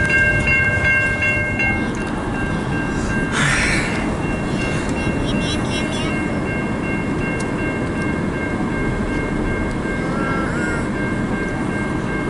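CN local freight train rolling past, a steady rumble of wheels and cars. Over it is a steady high tone, strong for about the first two seconds and fainter after, with a short burst of noise about three seconds in.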